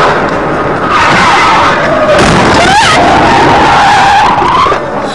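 Car tyres squealing on asphalt as the car skids sideways at highway speed: a long, loud screech that starts about a second in, wavers in pitch and dies away near the end, over road noise heard from inside the car.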